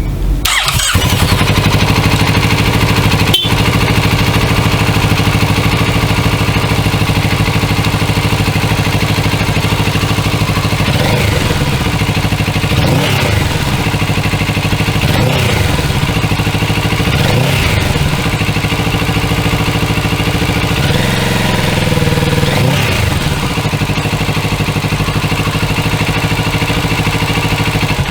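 Kawasaki Z650RS 649 cc parallel-twin on its stock exhaust, cold-started and idling steadily. Through the middle it is revved in several short throttle blips, each rising and falling back, then it returns to idle.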